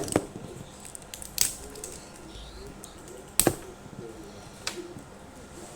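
Wrapping on an L.O.L. Surprise ball being handled and peeled open by hand: four sharp crackling snaps with quieter rustling between them.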